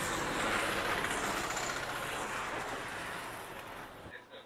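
A chakri, a Diwali ground-spinner firework, hissing steadily as it sprays sparks across the pavement. The hiss slowly fades as it burns out and stops just before the end.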